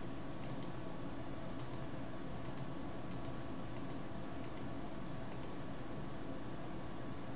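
Computer mouse button clicking about seven times, roughly once a second, each click heard as a quick press and release; the clicks stop about five and a half seconds in. They are faint over a steady background hiss and hum.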